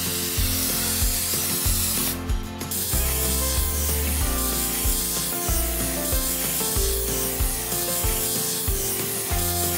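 Background music with steady bass notes and shifting sustained tones.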